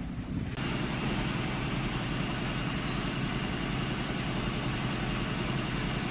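A fishing boat's engine running steadily at an even pitch, a constant low hum that sets in about half a second in.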